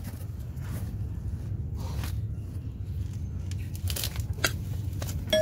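Faint crackling and rustling handling noise over a low, steady rumble, with a few light clicks near the end; a two-tone bell chime begins right at the close.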